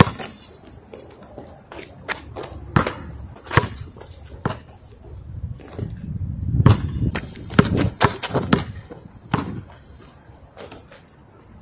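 Basketball dribbled on asphalt: a string of irregular bounces, each a sharp thud.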